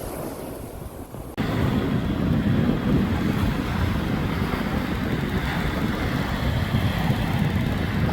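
Wind rumbling on the microphone over surf, starting abruptly about a second in and then running steadily.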